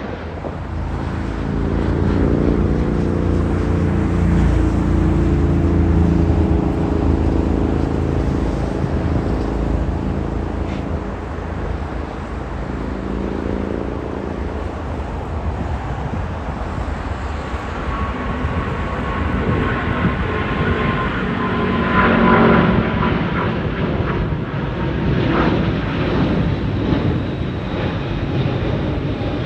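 United Boeing 777-200ER twin jet engines at takeoff power: a loud, continuous low rumble with a buzzing drone in the first half, then a jet whine over the rumble in the second half.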